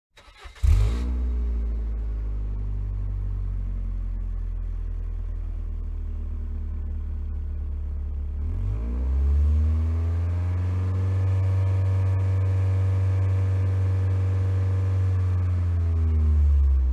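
Saturn car engine starting up about a second in, then idling steadily. At about the middle it revs up and holds at a higher speed, then drops back near the end.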